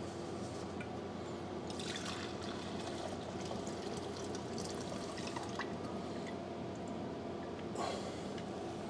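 Old fuel pouring in a thin stream from a chainsaw's fuel tank into a glass measuring cup, trickling and splashing. It starts about two seconds in and stops near the end, over a faint steady hum.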